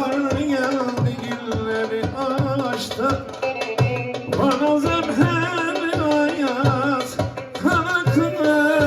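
Amplified live band playing an instrumental passage of a Turkish song: a steady drum beat under a wavering, vibrato-laden melody line.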